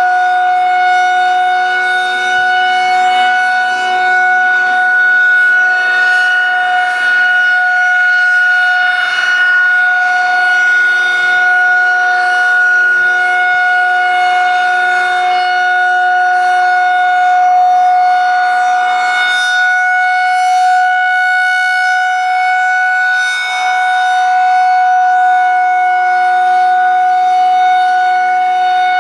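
Federal 2001-130 civil defense warning siren sounding a steady, loud tone for a siren test, holding one pitch with only slight swells in level.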